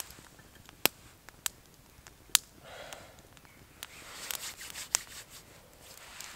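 Small wood fire of split feather-stick shavings crackling, with sharp single pops scattered irregularly through, and soft rustling in between.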